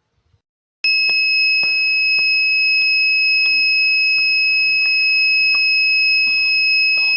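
Electronic buzzer of a homemade alarm clock sounding the alarm at its set time. It is a loud, steady, high-pitched tone that starts suddenly about a second in and holds without a break.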